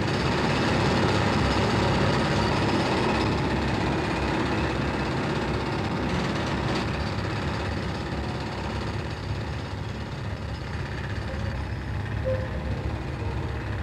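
Tunnelling machinery and a spoil conveyor running: a steady, dense mechanical rumble and clatter.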